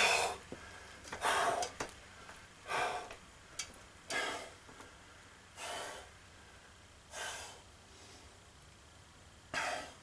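A man breathing hard from the strain of holding a heavy ceiling fan overhead: about seven heavy breaths, each a second or so apart, with a few faint clicks between them.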